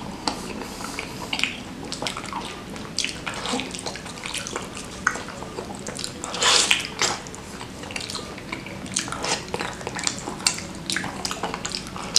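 Close-miked wet chewing of soft, gelatinous beef kikil in spicy broth: sticky mouth clicks and smacks, with one louder, longer wet sound about six and a half seconds in.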